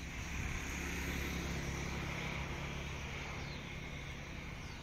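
Engine of a passing motor vehicle humming, swelling in the first second and slowly fading away.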